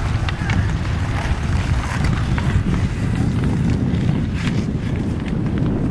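Wind buffeting the microphone in a steady low rumble, with scattered sharp clacks and scrapes of ice-hockey sticks, pucks and skates on pond ice.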